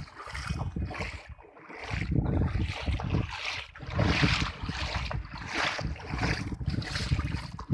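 Wind buffeting the microphone in irregular gusts, over a rushing hiss.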